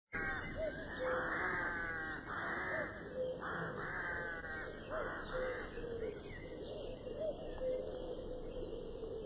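Crows cawing over and over, harsh calls following each other every half second to a second.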